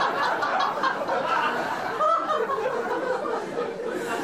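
A group of people laughing and chattering, several voices overlapping.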